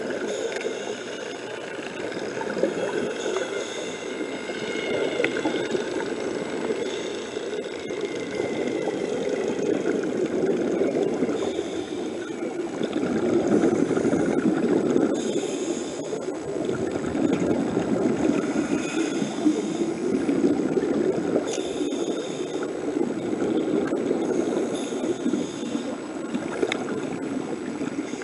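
Scuba diver's exhaled bubbles gurgling and rushing past an underwater camera, swelling and fading every few seconds with the breaths, loudest about halfway through.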